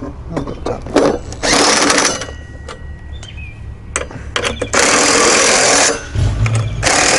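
Cordless drill running in three short bursts as it drives in the long bolts that fasten a license plate extender to a vehicle lift, with a few clicks and knocks in between.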